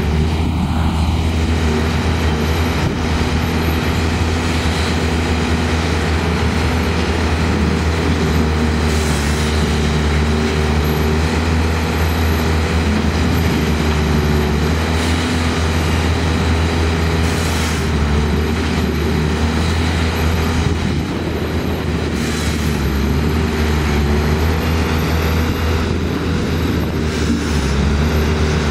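Engines of the competitors' machines running steadily in a continuous low drone with a deep rumble.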